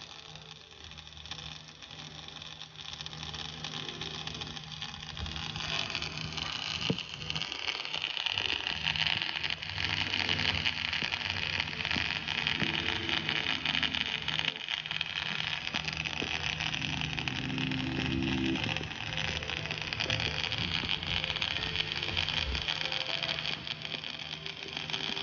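Dual-shield flux-cored arc welding with .045 wire: a continuous crackle from the arc as the weld runs vertical uphill. It grows louder over the first few seconds, then holds steady.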